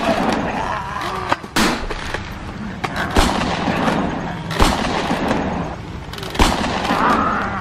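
Gunshot-like bangs from foam-dart toy blasters being fired, about four sharp shots roughly a second and a half apart over a continuous noisy background.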